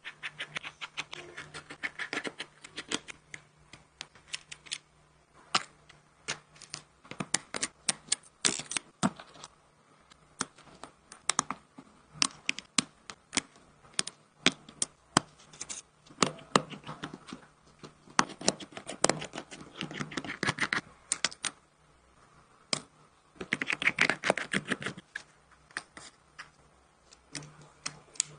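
Irregular sharp clicks and taps of small repair tools working on a smartphone, with a few denser runs of rapid clicking and a low steady hum underneath.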